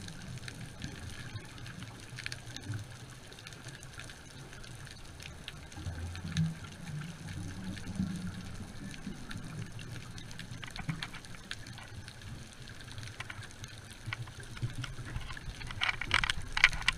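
Underwater sound: a steady low rumble with scattered clicks and crackles, which grow louder and thicker near the end.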